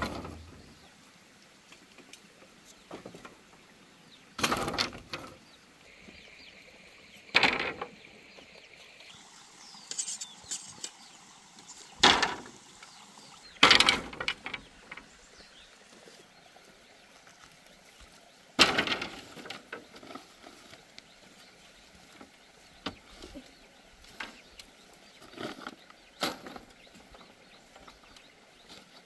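Bamboo poles knocking and clattering as they are handled and laid on a platform of bamboo poles: a handful of sharp knocks a few seconds apart, with quieter taps between.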